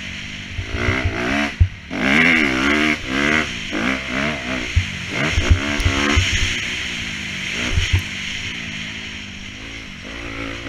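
Off-road motorcycle engine revving hard and dropping back again and again as the throttle is worked through corners and gear changes, with scattered low thumps.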